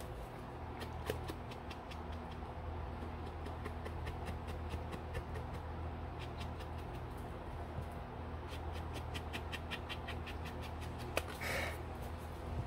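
Foam ink blending tool dabbed repeatedly against an ink pad and the edges of a paper card, a run of quick light taps several times a second in two spells, over a steady low hum.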